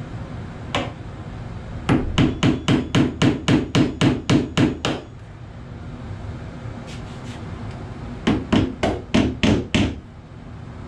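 Claw hammer tapping on a door's spring hinge: a single knock, then a quick run of about fourteen sharp strikes at roughly five a second. After a pause there is a second run of about eight strikes near the end.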